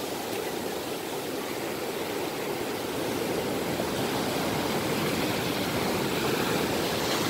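Ocean surf breaking and washing up a sandy beach: a steady rushing that slowly grows a little louder.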